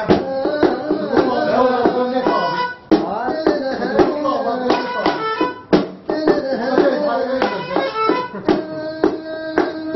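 Live folk music on string instruments, a small plucked lute and a bowed fiddle, with sharp plucked notes under a wavering bowed melody. The playing briefly drops out about three seconds in and again about six seconds in.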